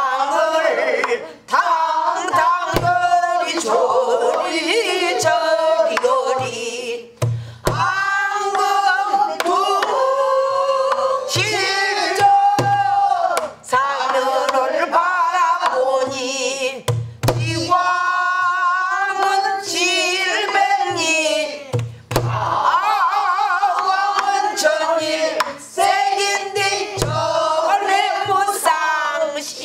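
A woman singing pansori in full voice, with long held and bending notes, accompanied by a buk barrel drum struck with a stick and palm: low thumps and sharp clicks every few seconds at uneven spacing.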